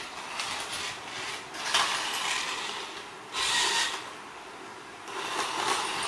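Toy remote-control car whirring in short spurts, about four bursts of under a second each, its small electric motor and gears rasping as it moves about the tile floor.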